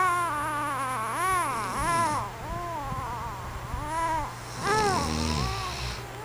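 Baby of nearly four months cooing and babbling: a string of high, sing-song coos that rise and fall in pitch, with a lower, rougher sound about five seconds in that fits the man snoring in the background.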